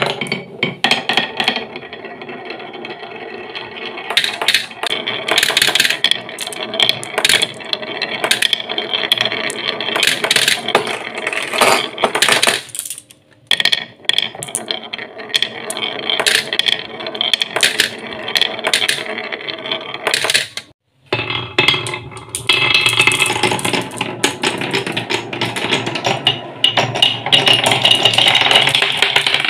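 Glass marbles rolling and rumbling along wooden marble-run tracks, with many sharp clicks and clacks as they strike the wood, each other and the plastic bed of a toy truck.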